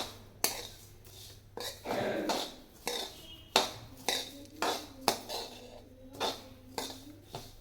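Metal spoon scraping and clinking against a kadhai while stirring coriander and fennel seeds being roasted in ghee, in irregular strokes about once or twice a second.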